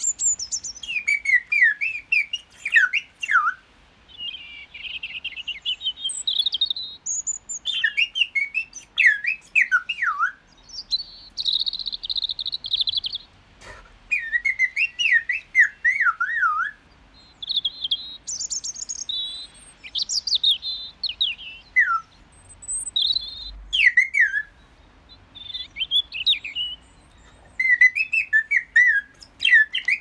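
Short bursts of chirping, warbling bird-like whistles with brief pauses between them: a man imitating birdsong, trading calls with songbirds.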